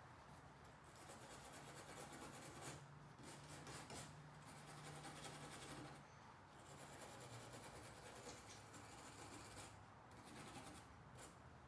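Wire brush scrubbing the threaded rear wiper pivot shaft clean, faint scratchy strokes in several bouts of a few seconds each with short pauses.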